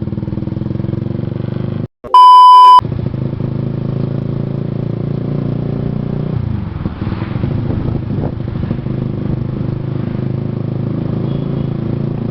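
Motorcycle engine running steadily while riding, its note dropping a little past six seconds in. About two seconds in, the engine sound cuts out for a loud, flat electronic censor beep lasting under a second.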